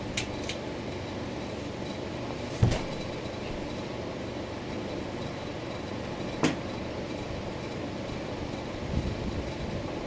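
Hugger four-blade ceiling fan running with a steady motor hum and whir. A few sharp clicks cut through as the fan's light is switched on, the loudest about a third of the way in and again past halfway.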